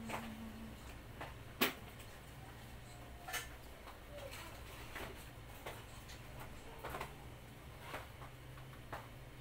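Small packets, jars and plastic containers being picked up and set down, giving irregular light clicks and knocks with a sharper knock about one and a half seconds in, over a low steady hum.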